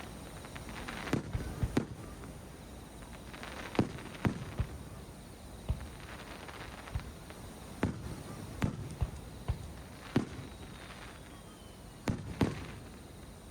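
Aerial fireworks bursting: a dozen or so sharp bangs at uneven intervals, some followed by a crackling trail, with a faint falling whistle near the end.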